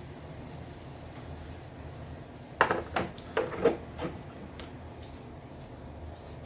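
A quick run of about five light knocks and clatters, household objects being handled and set down, about two and a half seconds in, over a low steady background hum.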